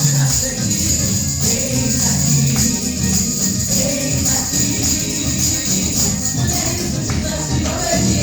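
Gospel song playing for a dance, with singing over a steady beat and a jingling tambourine.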